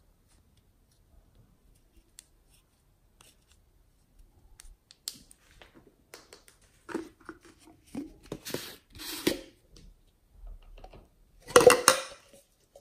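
Hands handling small cosmetic containers, a plastic eyeshadow compact and a nail polish bottle: scattered light clicks and taps, then a brief cluster of clattering near the end.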